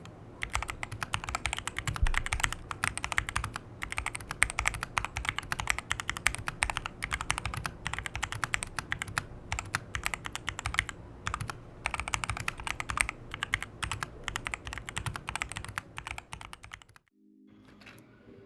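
Fast typing on a Machenike K500-B61 mechanical keyboard with brown switches: a dense, continuous run of key clacks that stops about 17 seconds in.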